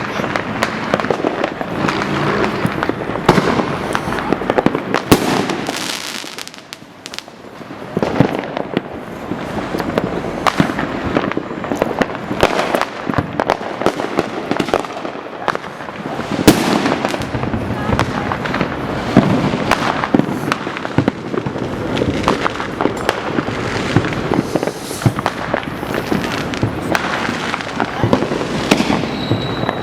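Fireworks going off continuously across the city, a dense run of overlapping bangs, pops and crackles, with a short lull about six seconds in.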